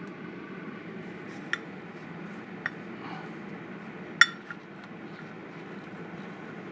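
A few light metallic clinks of small metal objects knocking on a workbench, over a steady low hum. The loudest clink comes about four seconds in and rings briefly.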